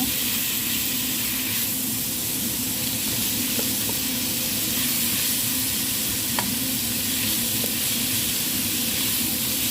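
Onions, spices and tomato strips sizzling in hot oil in a pan while being stirred, the tomatoes cooking down until they turn watery. A steady frying hiss, with a few light clicks from the stirring.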